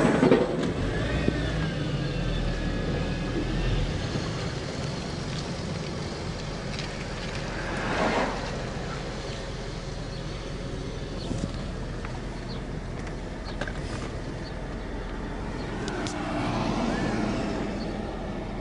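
Motor vehicle noise: a steady low engine rumble with road hiss, swelling briefly about eight seconds in and again near the end.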